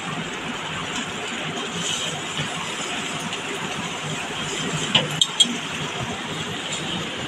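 A steady hiss, with a few light metal clinks about five seconds in as a spoon touches a steel kadai while boiled pasta is tipped in from a plastic colander.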